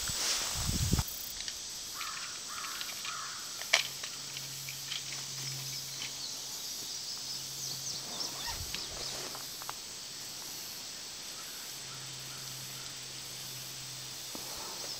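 Woodland ambience: a steady high hiss with a faint low hum under it, a sharp click about four seconds in, and a few lighter clicks and rustles later on.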